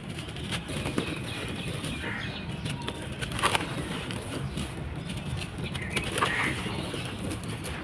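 Dry sand-cement balls crumbling in a tub: a steady gritty crunching and crackling, with a few sharper cracks, the loudest about three and a half seconds in.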